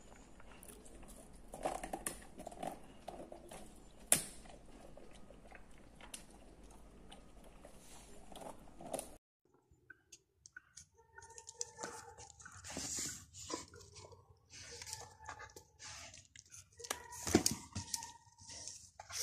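A Greater Swiss Mountain Dog chewing and crunching hard, frozen bread, with sharp clicks and crunches. The sound cuts out about nine seconds in; then the dog chews and mouths a rope toy, with short pitched sounds among the chewing.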